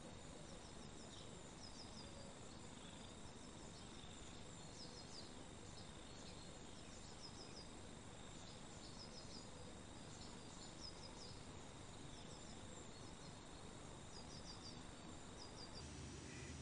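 Faint outdoor ambience: a low hiss with short runs of three or four high chirps repeating every second or two. The chirps stop near the end and a low hum comes in.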